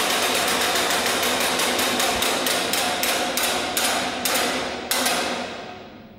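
Big Ben's clockwork clattering: a rapid run of metallic clicks that slows down and fades away over the last couple of seconds.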